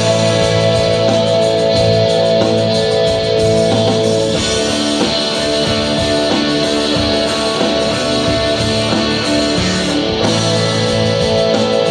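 Live shoegaze rock band playing, with layered sustained electric guitar chords over bass and drums.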